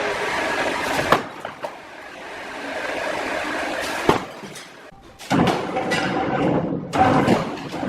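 Wood-sawing machinery running, with sharp knocks and clanks of wood and metal about a second and about four seconds in. The machine grows louder from about five seconds in, with a steady whine over the noise.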